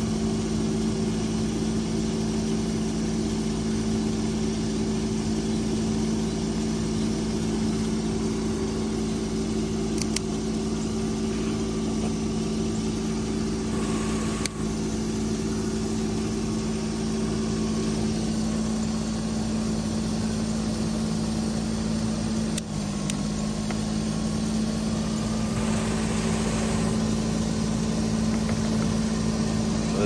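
Pickup truck engine idling steadily under the open hood, with a few sharp clicks.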